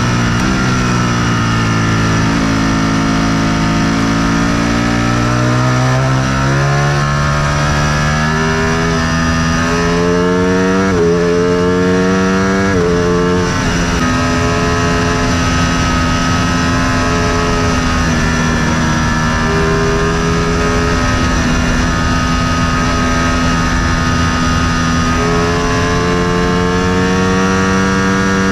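Superbike engine under way. The revs sag and then climb, with a few quick gear shifts around ten to thirteen seconds in. It then holds a steady cruise and picks up a little near the end.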